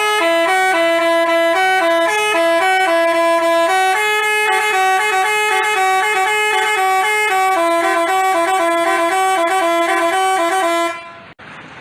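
Basuri telolet horn, a multi-tone bus horn, playing a fast melody of chord-like notes that change several times a second. It cuts off near the end.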